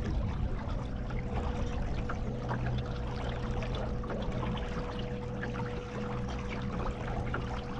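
Water trickling and lapping in many small splashes, over a steady low hum and a faint, steady whining tone.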